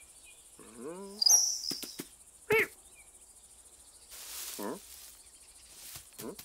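Cartoon cat's short mews and chirrups, four brief calls that bend in pitch, over a steady high chirring of crickets, with a short rustle about four seconds in.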